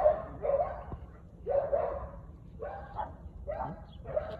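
A dog barking repeatedly, about seven short barks half a second to a second apart.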